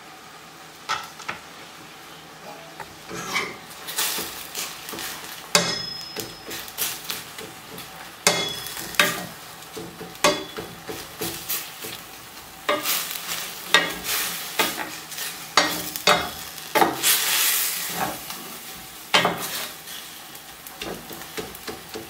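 Wooden spatula stirring and scraping minced meat around a stainless steel frying pan, with frequent irregular knocks against the pan, over a light sizzle of the meat frying.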